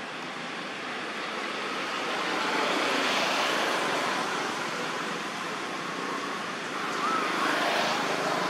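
Passing vehicle traffic: a rushing noise that swells to a peak about three seconds in and again near the end.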